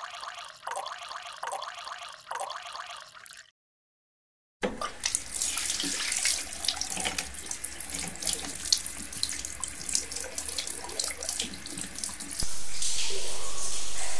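Milk poured from a steel jug into a glass, splashing with a ringing tone. After a second's pause, a pot of liquid bubbling with many small pops. Near the end, a wall-mounted exhaust fan starts up and runs with a steady whirring noise, the loudest sound here.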